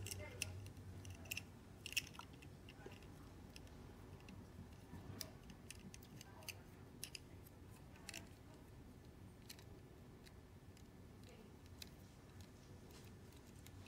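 Faint, scattered clicks and taps of a small plastic Bandai Super Minipla Voltron model kit as fingers handle it and work its parts.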